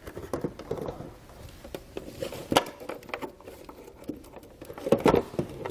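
Plastic taillight assembly of a 2020 Jeep Grand Cherokee being worked into its opening with the wiring and diodes packed behind it: irregular knocks and clicks of plastic against the body. There is one sharper click about two and a half seconds in and a cluster of louder knocks about five seconds in.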